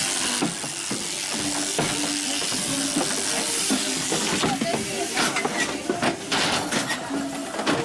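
Sheep crutching work: a steady hiss of machinery with scattered metal clanks and knocks, busier in the second half.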